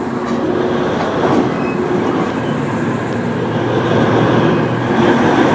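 Heavy mining machinery running, a steady loud rumble with continuous rattling and clanking.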